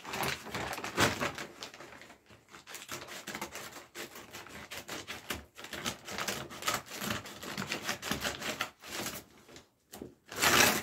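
Scissors cutting open a crumpled brown paper mailer bag, with irregular paper crackling and rustling as the bag is handled, and a louder burst of paper rustling near the end.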